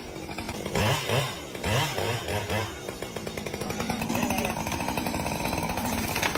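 A small motor running with a rapid buzz, varying in pitch at first and then steady over the last few seconds.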